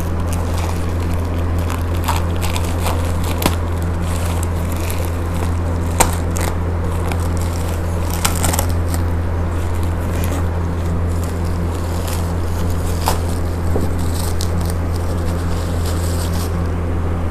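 Packaging being opened and handled by hand: crackling and scraping with scattered sharp clicks, over a steady low hum.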